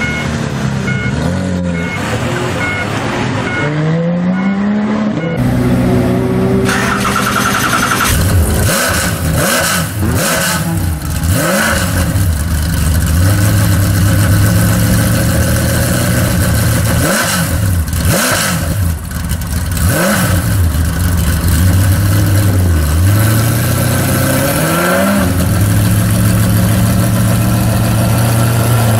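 A Porsche 911 GT3 RS's flat-six pulls away. After about six seconds the sound changes to a Ford GT's V8 idling, revved in short blips several times.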